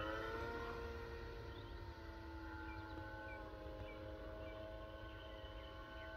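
Electric motor and propeller of a radio-controlled Tiger Moth biplane model whining in flight; the pitch jumps up at the start, slides down over the first two seconds, then holds steady.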